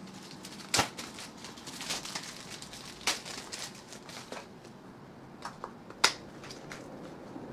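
Clear plastic bag crinkling and rustling as a cardboard box is pulled out of it and handled, with a few sharp clicks and taps, the loudest about six seconds in.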